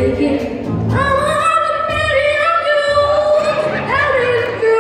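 A song: a high singing voice holding long, slightly wavering notes with music underneath.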